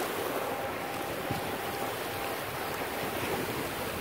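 Steady wash of shallow seawater over rocks and seaweed at the shoreline, with wind buffeting the microphone.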